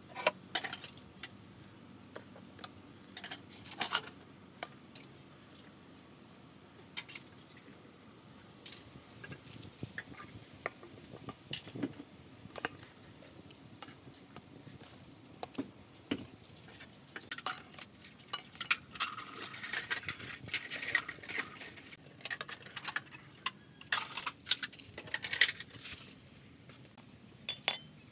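Irregular clicks, taps and clinks of bamboo skewers knocking and scraping against an aluminium basin as skewered eels are handled, with a longer scrape about two-thirds of the way through.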